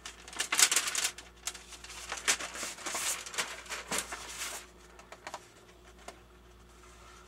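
Paper rustling and crinkling in uneven bursts as a paper certificate is handled, dying down after about four and a half seconds.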